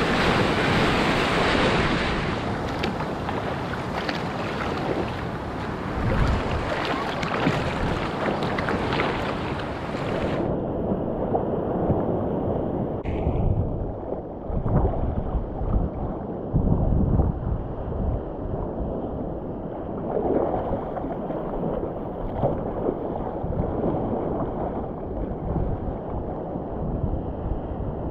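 Ocean water sloshing and splashing around a surfboard and a helmet-mounted GoPro held close to the surface, with wind buffeting the camera's microphone. About ten seconds in, the sound suddenly turns muffled, losing its hiss.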